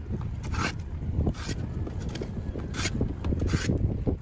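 Metal filister (rabbet) plane cutting shavings from a glued-in pine parting-bead patch on a wood window sash, blending it flush. About four short scraping strokes, roughly one a second, over a steady low rumble.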